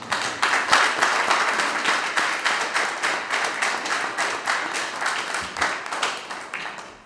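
Applause: many hands clapping in a dense stream, tapering off near the end.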